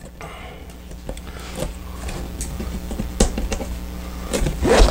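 Hands handling the stiff panels of a fabric RC car hauler bag: scattered light clicks, taps and rustles over a steady low hum, with a louder knock near the end.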